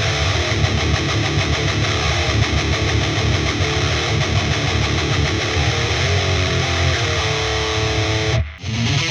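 High-gain distorted electric guitar playing a heavy metal riff through a PVH515 4x12 cabinet impulse response, a 5150-style tone. The playing stops for a moment near the end, then picks up again.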